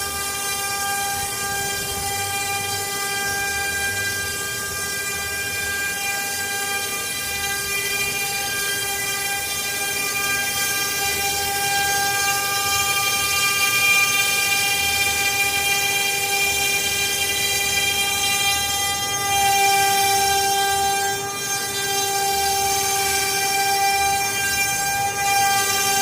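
CNC router spindle running with a steady, high-pitched whine made of several even tones, its pitch holding nearly constant, with brief small changes around the twentieth second.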